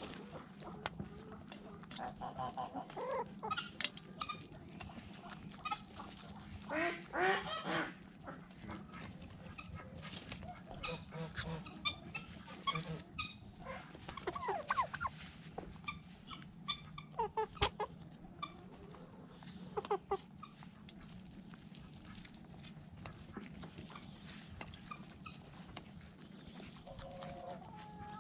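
Mixed flock of backyard poultry (ducks, chickens and turkeys) calling in scattered short calls, busiest about seven seconds in and again in the middle of the stretch, over a steady low hum.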